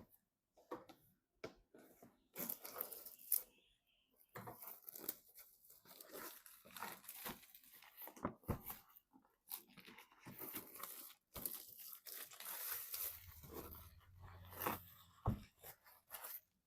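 Irregular crinkling, rustling and sharp clicks of PC parts and packaging being handled by hand.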